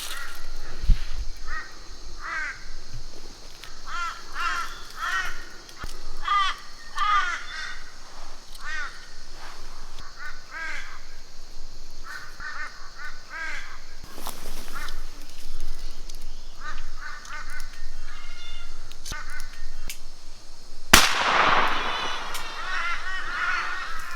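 Birds calling over and over in short arched notes, then a single 12-gauge shotgun shot about 21 seconds in that rings off into the scrub, with the birds calling on after it.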